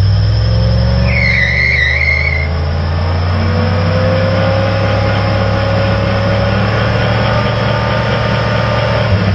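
1964 Chevrolet C10 pickup doing a burnout in place, its engine held at high revs while the rear tyres spin and smoke. Engine pitch climbs slowly, with a wavering tyre squeal for about a second and a half near the start.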